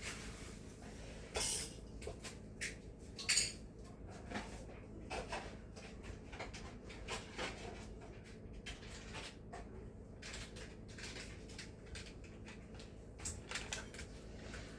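Faint kitchen clatter: scattered light knocks and clicks, two louder ones in the first few seconds, over a low steady hum.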